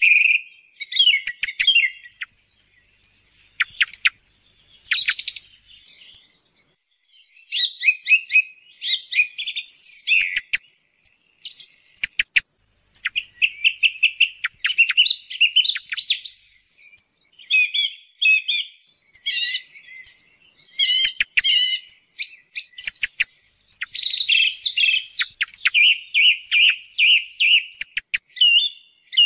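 Song thrush singing: varied whistled and chattering phrases, many of them repeated several times in quick succession, with short pauses between bouts.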